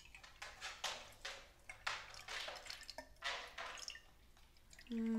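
Water poured from a plastic water bottle into a glass bottle half full of vegetable oil, splashing and gurgling in uneven gulps. Near the end a short hum from a woman's voice begins.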